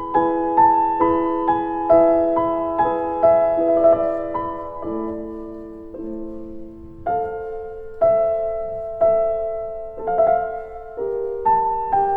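Soft, slow piano music, notes and chords struck about once a second and left to ring, with a quieter passage in the middle.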